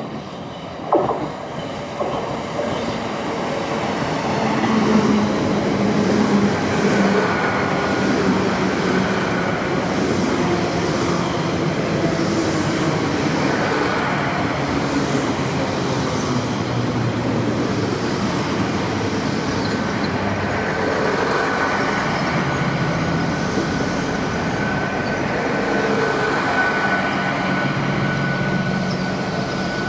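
GWR Class 802 bi-mode train running slowly alongside the platform: a steady rumble of wheels and under-floor engines, with a sharp knock about a second in. A thin, high, steady squeal comes and goes over the rumble and runs more continuously in the second half.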